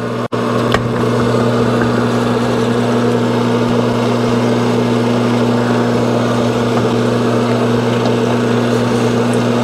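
Sunnen honing machine running with a steady hum while its oiled stones grind inside a 1979 Suzuki TS125 cylinder that is worked back and forth along the spinning mandrel.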